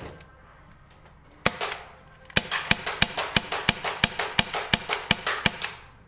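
MGC Beretta M93R fixed-slide gas pistol firing semi-automatic: one shot about a second and a half in, then a rapid string of about ten sharp shots, roughly three a second.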